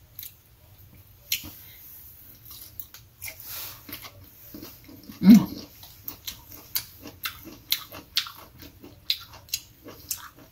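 A person chewing thin slices of fresh mango close to the microphone: a steady run of short, wet mouth clicks and lip smacks, with one short, louder vocal sound about five seconds in.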